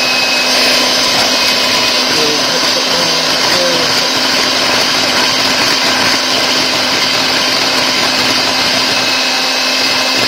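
Electric hand mixer running steadily, its beaters whisking thick cake batter in a plastic bowl.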